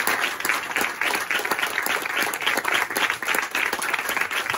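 An audience applauding, many people clapping together at a steady level.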